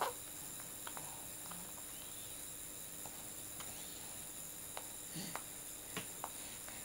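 Quiet room with a steady hiss, broken by a young baby's small sounds: a brief falling vocal sound at the start, then scattered faint mouth clicks and soft grunts, most of them near the end.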